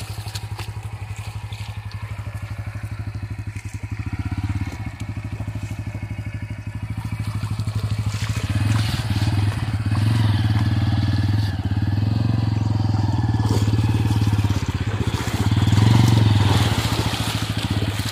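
Bajaj Pulsar N160's single-cylinder engine running at low revs with an even, rapid pulse as the motorcycle crawls over rough ground. About halfway through it gets louder, and the tyres splash through shallow muddy water.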